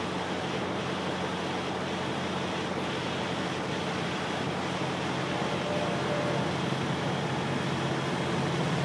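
Diesel locomotives of an approaching Florida East Coast Railway freight train: a steady, distant low drone that grows slowly louder as the train nears.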